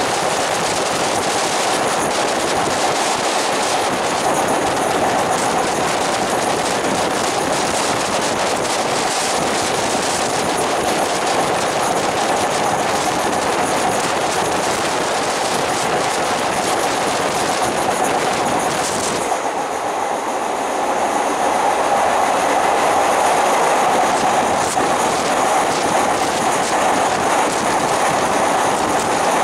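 Ordinary Thai train's passenger carriage running at speed on elevated track, heard from an open window: a steady rumble of wheels on rail. About two-thirds of the way through the sound changes and grows a little louder, with a stronger mid-pitched hum.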